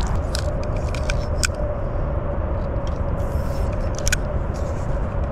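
Electric trolling motor running with a steady low rumble and a faint even hum, with a few light clicks as a fishing reel is handled, the clearest about four seconds in.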